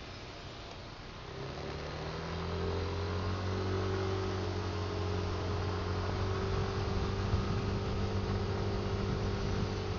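A vehicle's engine speeding up about a second in, its hum rising in pitch and growing louder, then running steadily at cruising speed.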